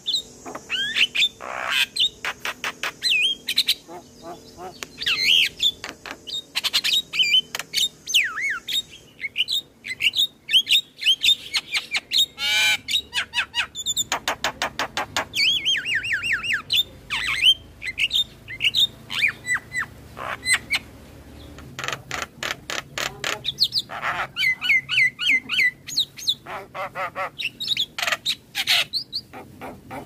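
Javan myna singing a varied song: rapid rattling trains of harsh clicks mixed with short whistled and squawked notes, going on with brief pauses.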